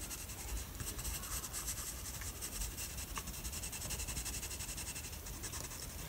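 4B graphite pencil scratching across sketchbook paper in rapid short shading strokes, a steady fine rasp.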